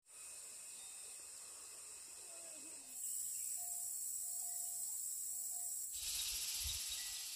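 Steady high-pitched insect chirring, stepping louder about three seconds in and again about six seconds in.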